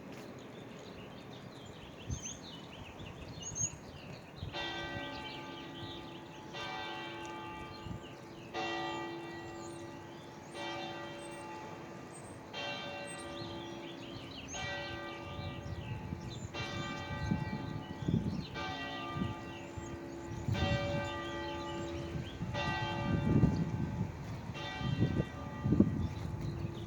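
A large bell tolling eleven slow strokes about two seconds apart, each ringing on into the next, striking eleven o'clock. Wind buffets the microphone in gusts that grow stronger in the second half.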